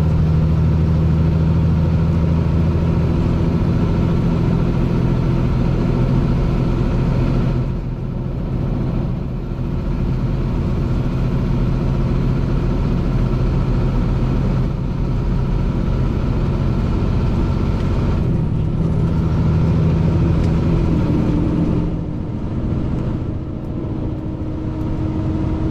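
Diesel engine of a Western Star 4900SF heavy-haul truck running steadily as it pulls a loaded trailer down the road, with tyre and road noise. The engine note eases briefly about eight seconds in and again near the end.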